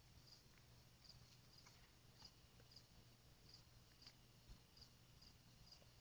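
Near silence: faint insects chirping, short high chirps about twice a second, with a few faint soft clicks.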